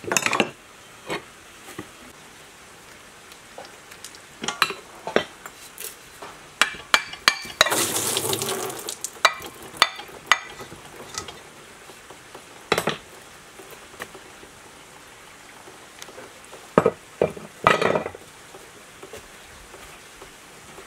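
Irregular sharp metal knocks and clinks of a claw hammer tapping the rusty metal housing of a sewage pump held in a vise, with a noisier second-long clatter about eight seconds in and heavy strikes near the start and near the end.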